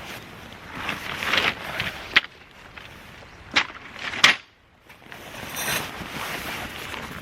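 Rustling handling noise broken by three sharp clicks or knocks, the last followed by a brief near-silent pause.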